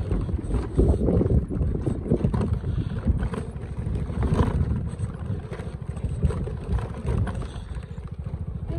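Motorcycle engine running at low speed, with wind buffeting the microphone.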